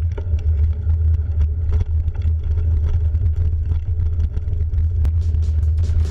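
Steady low wind rumble and rattling of a mountain bike riding a rough dirt trail, picked up by a handlebar-mounted action camera, with frequent small clicks and knocks from the bike.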